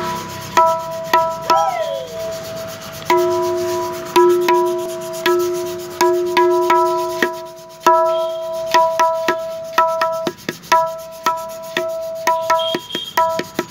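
A tabla dayan struck by hand, its strokes ringing at one steady pitch, with a lower ringing tone held through the middle. The strokes come a few at a time at first, then quicker and closer together in the second half.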